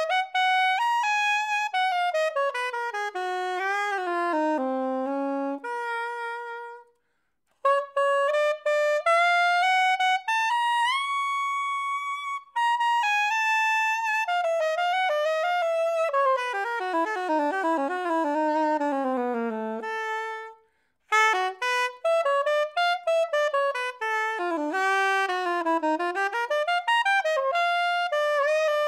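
Selmer Super Action 80 Series II soprano saxophone, silver-plated, played solo: three melodic phrases with two short breaks for breath, running down to the low notes and up to a long-held high note in the middle.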